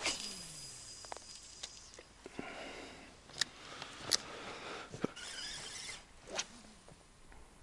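Boat motor just shut off, its pitch falling away over the first second, then quiet drifting with a few sharp clicks and small knocks of fishing gear in the boat and faint scratchy rustles.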